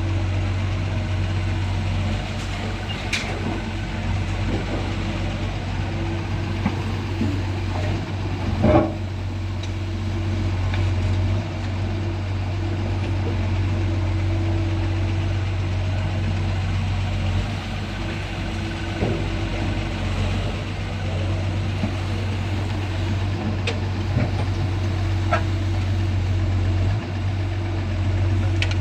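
Doosan DX140 excavator's diesel engine running steadily, with a few sharp metallic clicks and one louder knock about nine seconds in.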